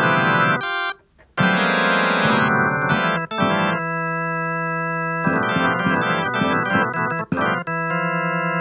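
Organ-like electronic keyboard playing held chords that change every second or two, with a brief break about a second in.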